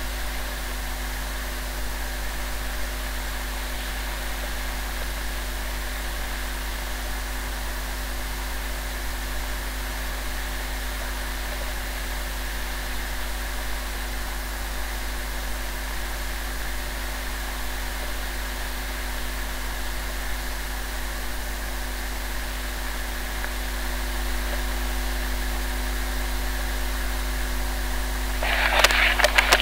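Steady hiss with a low electrical hum: the recording's own noise floor in a quiet spot. A short louder noise comes in near the end.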